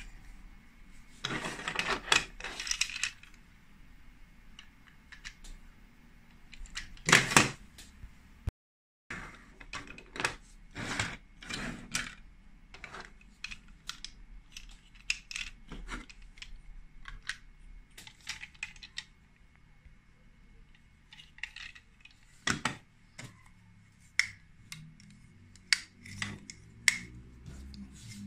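Lego Duplo plastic bricks and toy train pieces clicking and knocking together as they are handled and snapped into place. There is a quick run of clicks early on and a single loud knock about seven seconds in.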